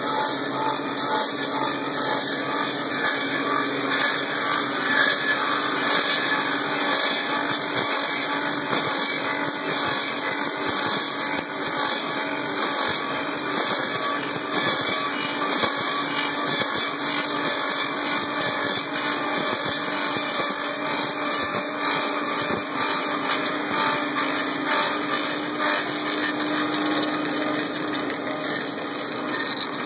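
Klotz lathe running steadily while it cuts a wooden axe handle, a continuous noisy whir of the cutter on wood with a faint steady hum under it.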